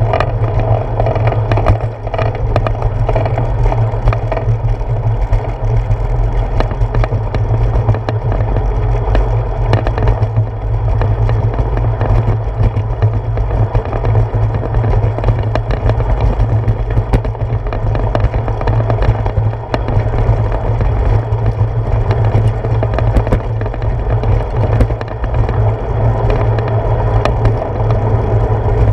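A bicycle rolling along a paved path, picked up by a handlebar-mounted GoPro: a steady, loud low rumble of wind and tyre-on-pavement vibration, with scattered small clicks and rattles.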